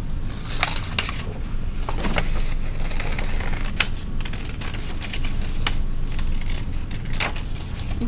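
Scissors snipping around painted paper circles, a few sharp snips at irregular intervals, with paper rustling as the sheet is turned. A steady low hum runs underneath.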